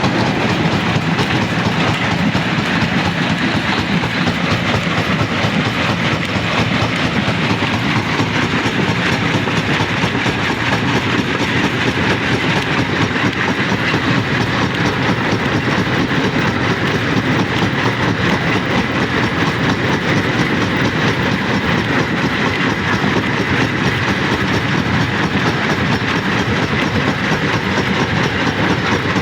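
Rock crusher running steadily, stone rattling and grinding through it in a dense, continuous din with no pauses.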